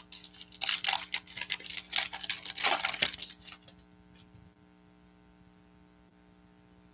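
A foil trading-card pack is torn open and its wrapper crinkled for about the first three and a half seconds. After that only a faint steady electrical hum remains.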